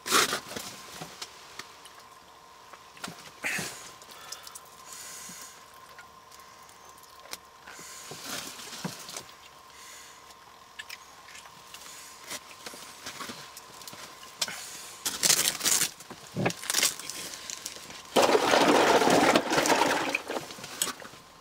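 Handling noises of landing and unhooking a small fish: scattered clicks and knocks, then a loud noisy rustle lasting about three seconds near the end, over a faint steady hum.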